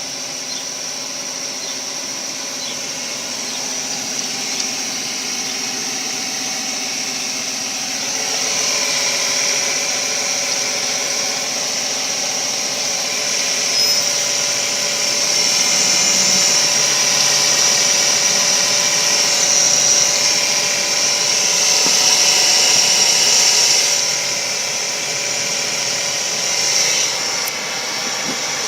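A 2005 Nissan Maxima making a noise its owner cannot identify: a steady high-pitched whine over a mechanical hum, growing louder about eight seconds in and easing off near the end.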